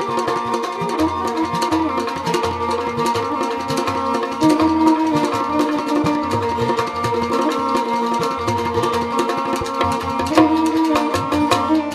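Rajasthani folk instrumental: a kamaicha, a bowed folk lute, plays a sustained melody over the twang of a morchang jaw harp and a steady hand-drum beat.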